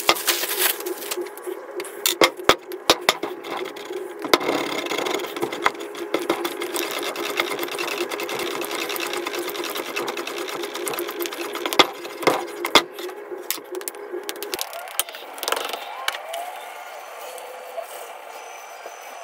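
Hands patting and slapping a block of wet clay on a wooden workbench: a string of irregular pats and thumps over a steady hum. In the last few seconds the hum changes as a pottery wheel spins with hands on the clay.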